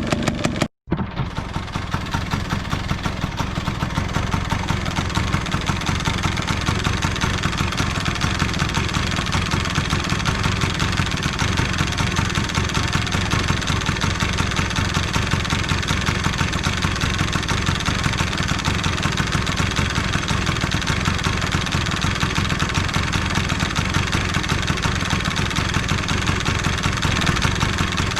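Yamaha BW'S 100 scooter's two-stroke single-cylinder engine idling steadily with a fast, even pulse. The sound drops out briefly less than a second in.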